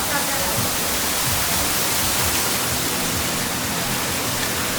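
Steady hiss-like wash of noise from a busy street market, with no clear single sound standing out.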